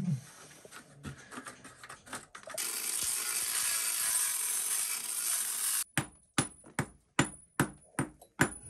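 Angle grinder cutting into the floor for about three seconds before stopping abruptly, then a series of sharp metallic hammer blows on a chisel chipping at the cut, about two or three a second.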